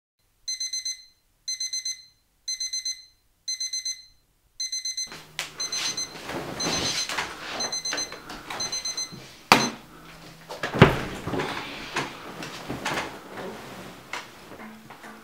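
Electronic alarm clock beeping in quick groups of high beeps, about one group a second. From about five seconds in, rustling and movement noise join it, and the beeping stops a little after halfway. Then come two sharp knocks over more rustling, the louder one about eleven seconds in.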